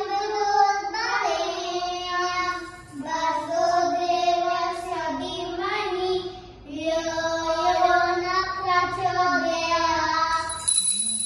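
Young children singing a Hindu devotional aarti hymn together in long held phrases while the puja lamp is waved. A high steady ringing tone starts near the end.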